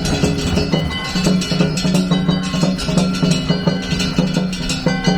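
Japanese gion float music (danjiri hayashi) playing steadily: drums and clanging small hand gongs in a rhythmic pattern, with sustained ringing tones.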